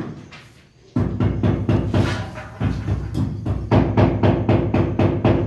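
Rapid repeated knocking, about six or seven strokes a second, in two runs with a short break in the middle.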